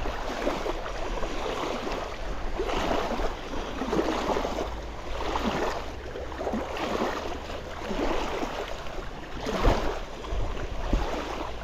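Small wind-driven waves lapping and splashing at the lake's edge, coming in uneven swells about every second, over a low wind rumble on the microphone.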